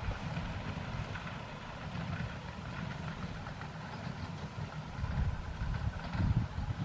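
Live-steam model locomotive CGW 292 running on a break-in run: an uneven low rumble with a faint hiss above it, swelling briefly twice near the end.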